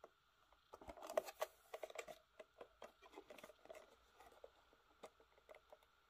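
Fingers gripping and turning a small cardboard model box, making a faint run of soft scrapes and taps that is busiest about a second in, then thins out.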